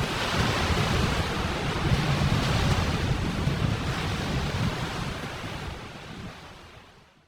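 Strong blizzard wind rushing, with wind rumbling on the microphone. It fades out over the last two seconds.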